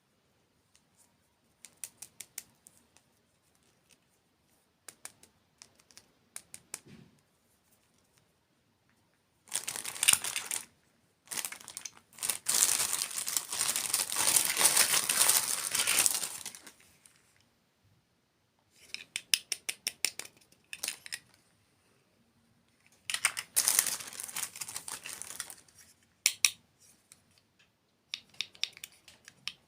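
Close-up crinkling and tearing of plastic packaging in long bursts, between runs of light clicks and taps.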